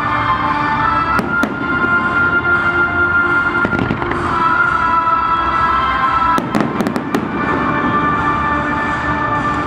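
Fireworks going off: continuous crackling, with sharp bangs twice about a second in and a quick cluster of bangs past the middle, over steady held tones.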